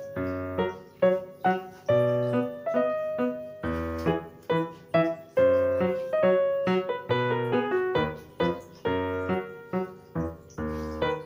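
Background piano music: a melody of struck notes, each fading away, over low bass notes.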